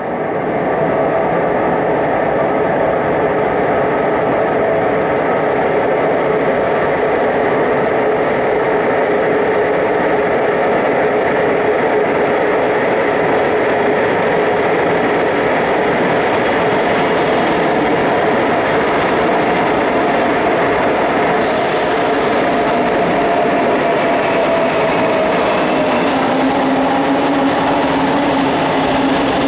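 Renfe series 446 Cercanías electric multiple unit running through an underground station, a steady whine from its electric traction motors over wheel-and-rail rumble, echoing off the station walls. There is a short hiss about two-thirds of the way through and a brief high squeal soon after.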